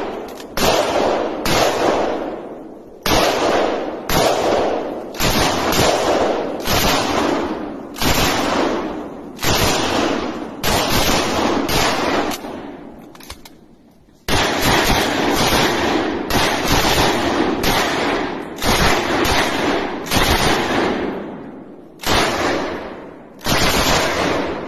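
Rifle shots fired one after another, about one a second, each trailing off in a long echo among the trees; the firing pauses for a second or so about halfway through, then resumes just as fast.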